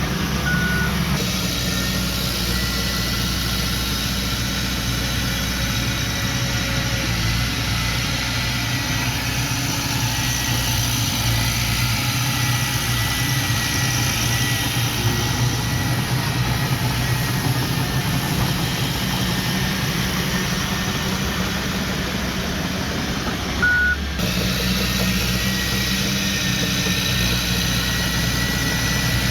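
Heavy earthmoving machine engine running steadily, with one short reversing beep near the end. The engine sound shifts abruptly about a second in and again just after the beep.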